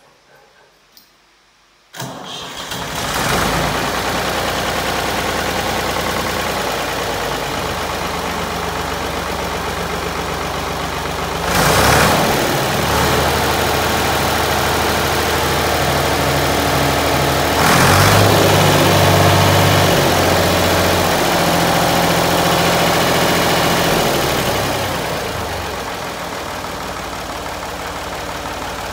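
Ford 4000 three-cylinder diesel tractor engine starting about two seconds in, then running. It is revved briefly twice, and near the end it drops back to a steady idle.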